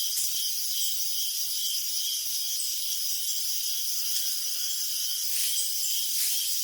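Crickets chirping: a dense, steady high-pitched chorus, with one nearer cricket chirping in a regular beat of about two to three chirps a second.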